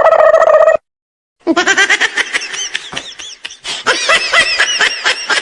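A brief buzzing tone that cuts off, then after a short gap a high-pitched giggling laughter sound effect in quick rising and falling bursts.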